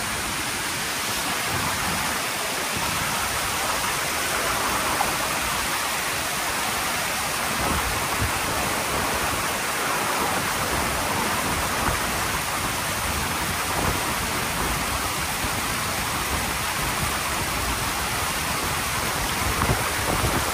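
Steady rush of fast-flowing river water, with white water breaking close by.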